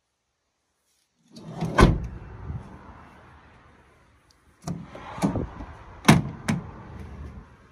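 Renault Kangoo van's sliding side door rolling along its track and slamming shut about two seconds in. Then come the latch clicks and knocks of the rear doors being opened, with two sharp knocks near the end.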